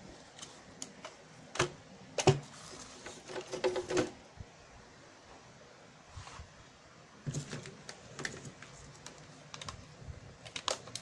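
Scattered clicks and light knocks of a CRT TV's printed circuit board being handled and set down on the chassis, then multimeter test leads being picked up. The loudest knocks come about two and four seconds in.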